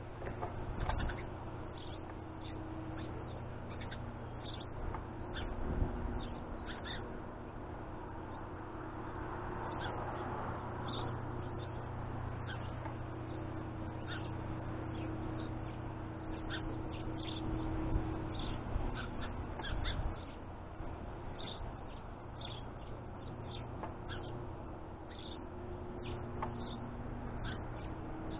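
Backyard birds calling with short, high chirps scattered throughout, over a steady low hum, with a few brief dull thumps.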